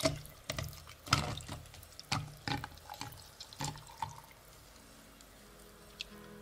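Water dripping and splashing: about eight separate drops or splashes at irregular spacing over the first four seconds, then quiet. Soft music begins near the end.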